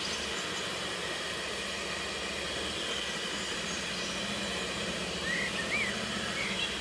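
Russell Hobbs electric hand mixer running steadily, its beaters whisking a thin mixture in a glass bowl. A few short, high chirps come in about five seconds in.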